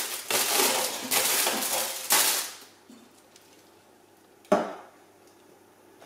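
Metal tongs scraping roasted pumpkin pieces off a foil-lined tray and dropping them into a stainless steel stockpot: a couple of seconds of clattering and scraping, then quiet broken by a single sharp clank about four and a half seconds in.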